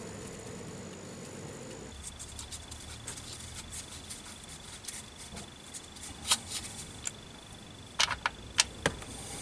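Scattered light clicks and taps as a gloved hand works at the underside of the car by the engine's oil sump, with a few sharper clicks near the end, over a faint steady high-pitched tone.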